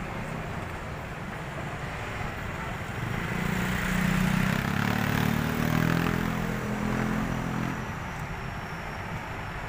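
Road traffic passing. A vehicle's engine drone grows louder from about three seconds in, peaks, and fades by about eight seconds in as the vehicle goes by close.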